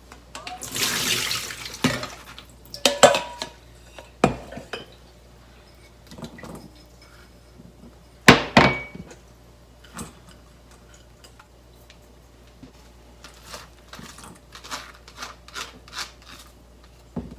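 Water poured off diced lotus root through a plastic colander for about a second. It is followed by scattered clinks and knocks of stainless-steel bowls and small ceramic dishes as vegetables are tipped into a bowl of fish paste, the sharpest knock a little past the middle.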